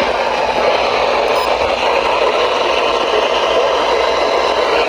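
Steady radio static hiss from a weather radio receiver tuned to a faint, distant NOAA Weather Radio station.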